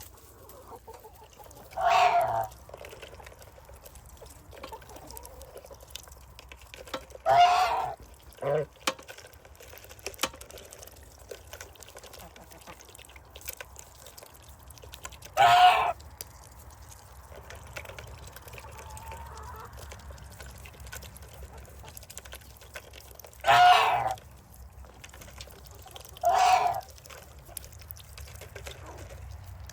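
Poultry calling: six short, loud calls of about half a second each, spaced irregularly. Between them come faint scattered clicks over a low steady hum.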